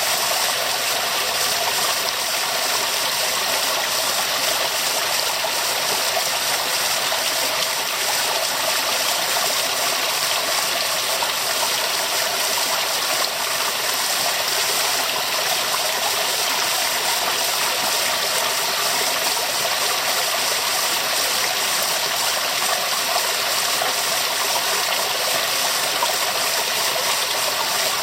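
Waterfall: a steady, unbroken rush of falling water, bright and hissy, with little deep rumble.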